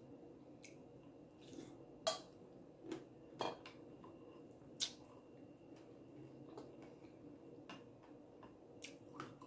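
Faint eating sounds: a spoon clicking against the bowl four or so times, with soft wet squishing of berries and granola in coconut water between.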